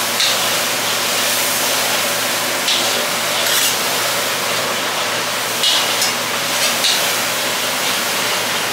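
Steady rushing background noise of a restaurant kitchen, with a faint hum under it. Over it come a few short, light clinks and scrapes of a metal spoon against steel trays and containers.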